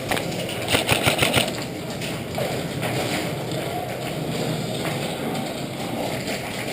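An airsoft gun firing a quick burst of about six shots about a second in, over steady background noise.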